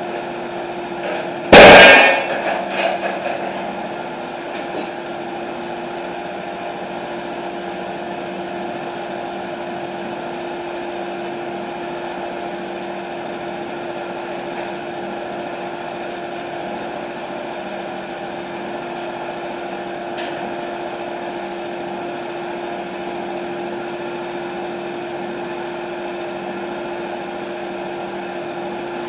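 TimberKing 1220 sawmill's engine idling steadily, with one loud, sharp clang about a second and a half in that rings out for a second or two.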